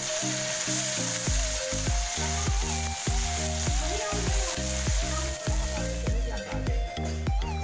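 Food sizzling as it fries in a cooking pan, a steady hiss that thins out near the end, under background music whose bass beat comes in about a second in.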